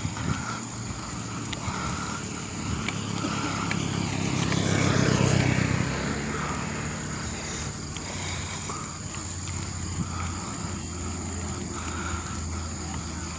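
Steady road and wind noise from a mountain bike being ridden uphill on a concrete road, a continuous rush that swells louder about four to six seconds in.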